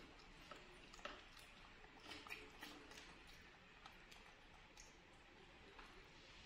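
Near silence with faint, scattered small clicks and ticks: pet monkeys eating and handling their food.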